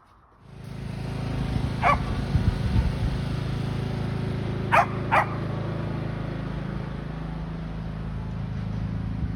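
An engine comes on about half a second in and runs steadily. A dog barks once and then twice more close together about three seconds later.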